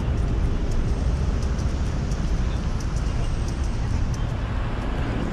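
Bicycle riding noise: a steady low rumble of wind and tyres rolling over a wooden boardwalk, with faint scattered light ticks.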